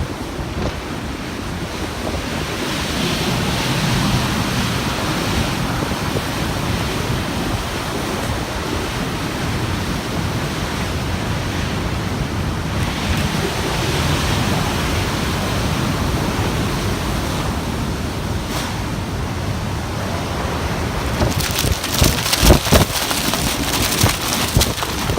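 Typhoon-force wind blowing hard and buffeting the microphone, swelling and easing in gusts. A cluster of sharp cracks and bangs comes near the end.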